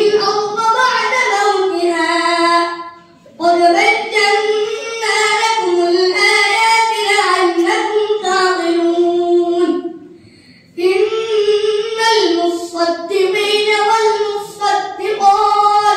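A boy reciting the Quran in Arabic in a melodic, chanted style, holding and bending long drawn-out notes. Two short pauses for breath break the recitation, about three seconds in and about ten seconds in.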